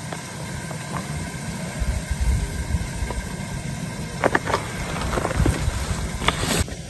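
Wooden rolling pin rolling dough on a wooden board, with a few light knocks about two-thirds of the way in, under an uneven low rumble of wind on the microphone.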